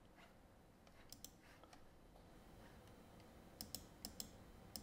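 Near silence with a handful of faint clicks from a computer mouse and keyboard, a few about a second in and a quicker run of them near the end.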